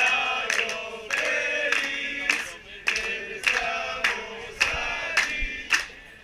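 A group of people singing loudly together in short held chanted notes, with hand claps landing on the beat about every half second.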